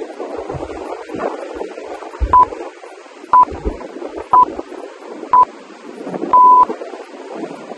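Electronic workout-timer countdown beeps at one steady high pitch: four short beeps a second apart, then one longer beep marking the end of the exercise interval. Steady wind and surf noise underneath.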